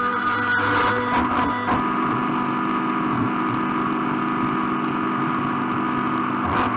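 Background music with a plucked guitar.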